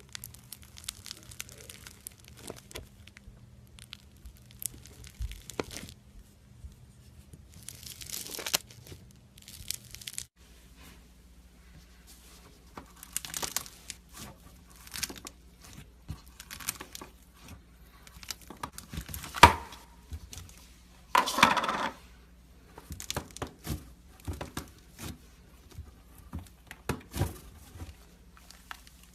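Slime being squeezed, stretched and pulled apart by hand: irregular small crackles, clicks and squishes, with a sharp pop about two-thirds of the way in followed by a longer crackling burst.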